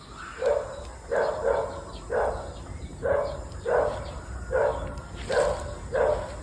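A dog barking over and over, about ten short barks at a steady pace, one every half second to second.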